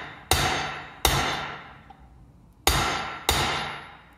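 Small sledgehammer striking a steel seal driver to drive a pinion bearing race into a Dana 30 axle housing: four sharp, ringing metal blows in two pairs. The blows mark the race bottoming out, seated fully home in its bore.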